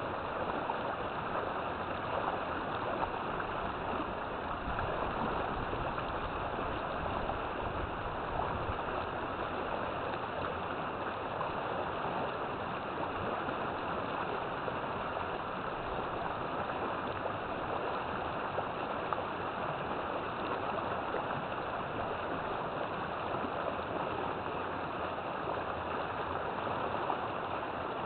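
River water flowing and rushing over rocks, a steady unbroken wash of noise.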